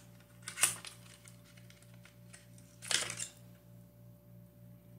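A liquid lipstick tube and its cardboard box handled by hand: a sharp click about half a second in, then a short scraping rustle about three seconds in, with a few faint ticks between.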